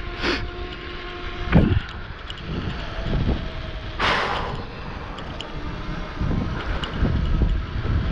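Wind buffeting the microphone while riding an e-bike, a low rumble with a faint steady whine under it. There is a short thud about a second and a half in and a brief hissing rush about four seconds in.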